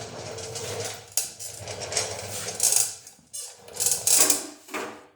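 Metal tools and mower parts clattering and rattling as they are handled, with a few sharp clicks and louder scraping rattles about two and a half and four seconds in.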